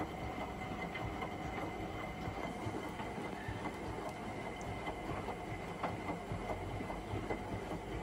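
Hotpoint Extra WMXTF742 front-loading washing machine tumbling a wash load: soapy water sloshing and clothes dropping in the turning drum with frequent soft knocks, over a steady whine.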